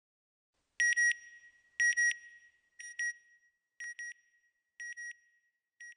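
Electronic beeping for a closing logo: six pairs of short, high beeps, about one pair a second. The first two pairs are the loudest and the rest are quieter.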